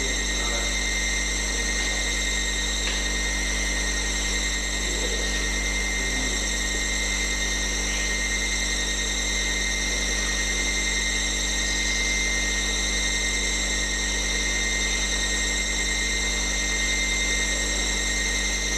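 Steady electrical hum with several high, thin whining tones above it, unchanging throughout, with no speech or music.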